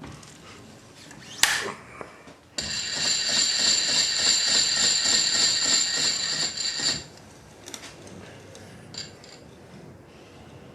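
A sharp click, then a milling machine motor runs with a steady high whine for about four seconds, starting and stopping abruptly. A few light clicks follow.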